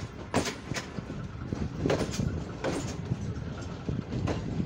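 Sir Syed Express passenger coach running on the track, a steady rumble of wheels on rail broken by about six sharp, irregular clacks as the wheels cross rail joints and points. Heard from an open window of the moving coach.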